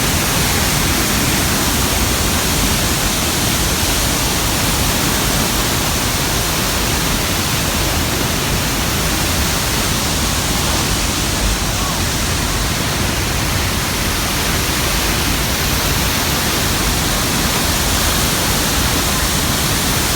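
Large waterfall seen from close to its base, a loud, steady, unbroken rushing of falling water.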